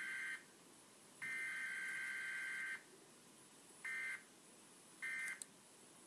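Emergency Alert System digital header tones: the tail of one data burst, then a full burst of about a second and a half a little after a second in, followed by two short end-of-message bursts near four and five seconds in, all faint.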